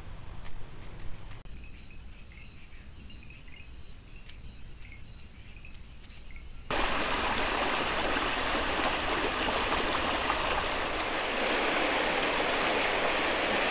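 Shallow rocky stream running, a steady rush of water that cuts in suddenly about seven seconds in. Before it comes a quieter stretch with faint, repeated high chirps.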